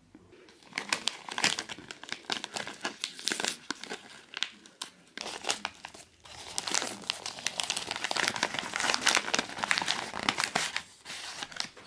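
A padded paper mailer envelope being torn open and crinkled by hand: a dense run of crackling and tearing paper, with a short lull about five seconds in and quieter handling near the end.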